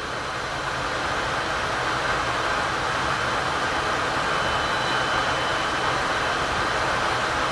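Steady rushing roar of a jet aircraft in flight, building in loudness over the first couple of seconds and then holding even.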